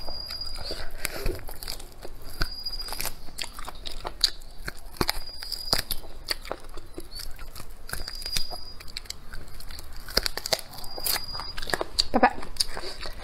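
Close-miked eating: a person biting and chewing food, with irregular crunches, clicks and wet mouth sounds.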